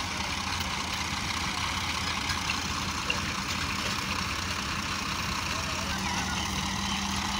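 Diesel engines of two Ford tractors and a dumper truck running steadily under load as the tractors tow the truck out of a sandy pit, a low steady hum that firms up about six seconds in.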